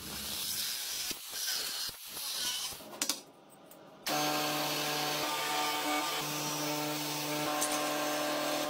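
Metal-workshop machinery: about three seconds of harsh scraping noise, then from about four seconds an electric motor running with a steady hum.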